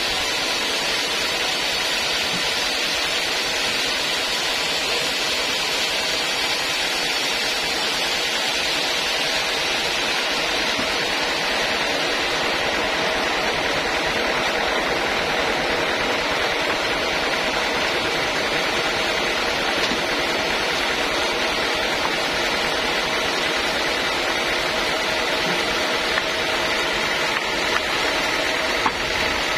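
Large band sawmill running steadily, its blade sawing lengthwise through an old teak log with an even hissing whine. A few faint ticks near the end.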